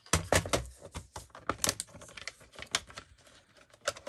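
Irregular taps and clicks of craft supplies (paper pieces and tools) being handled on a work table, in a quick, uneven run.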